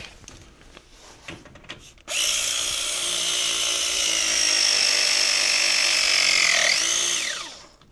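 Battery-powered copper press tool pressing a copper press tee fitting. After a moment of faint handling, the motor starts about two seconds in with a steady whine that drifts slightly lower. Near the end its pitch sweeps up briefly, then falls, and it stops as the press cycle finishes.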